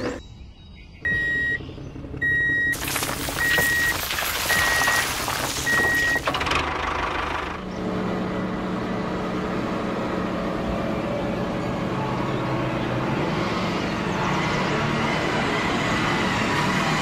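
Reversing-alarm beeps, five in a row about a second apart, over a noisy motor; then from about eight seconds in a tractor engine running steadily.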